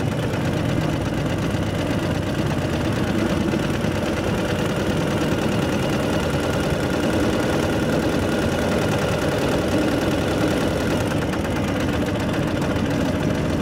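Motorcycle engines running steadily at low speed, mainly the near, onboard Ural sidecar rig's flat-twin, with the engines of the bikes ahead alongside.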